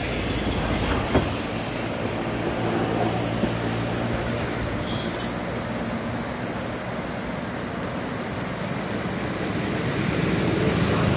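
Steady rush of a strong river current flowing past the bank, with a low engine hum from traffic underneath.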